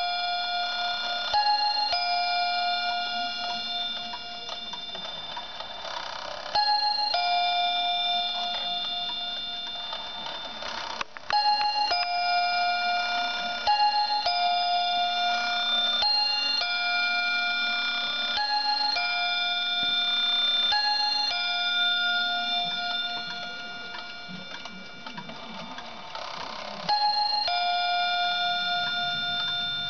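Quartz wall clock's chime playing a slow melody of clear pitched notes, one at a time, each held for about one to two seconds.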